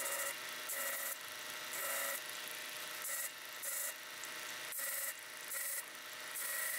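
Belt grinder running with a 120-grit belt while a forged steel hatchet head is touched to it in short passes; each pass is a brief hiss of steel on abrasive, about one a second, over the steady sound of the running belt.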